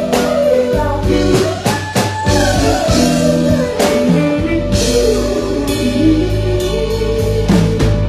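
Live band playing a song, with a lead voice singing over drums and a steady bass line.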